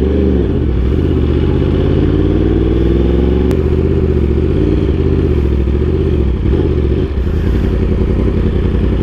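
Yamaha R1M's crossplane inline-four engine running through an Austin Racing GP1R aftermarket exhaust while riding. The pitch rises and falls with the throttle, with a long rise ending in a sharp click about three and a half seconds in, then settles to steady low-rpm running from about seven seconds in.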